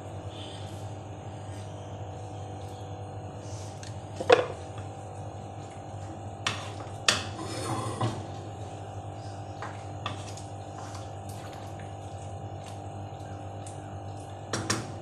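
A wooden spoon clacking and scraping against a pan while stirring vegetables and lentils in liquid. There are a handful of sharp knocks, the loudest about four seconds in, more around the middle and near the end, over a steady low hum.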